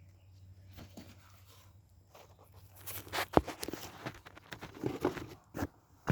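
Irregular plastic clicks and rustling as a new engine air filter is handled and fitted into its plastic airbox. It is faint at first, and the clicks start a few seconds in, the sharpest one about halfway through.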